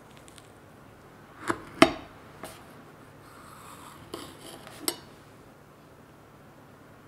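Metal knife clinking against a ceramic plate as it cuts down through a no-bake strawberry cheesecake. There are about five short clinks, the second one the loudest, with a soft scrape between them.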